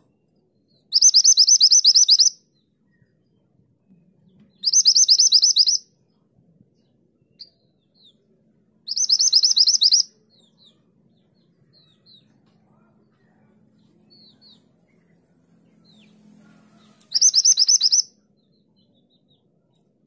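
Minivet singing in four separate bursts, each a rapid run of high, shrill repeated notes lasting a little over a second. The first burst comes about a second in and the last near the end.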